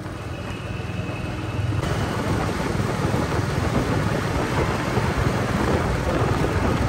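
Royal Enfield Meteor 350 motorcycle riding through a road tunnel: a steady rumble of engine, tyres and wind that jumps louder about two seconds in.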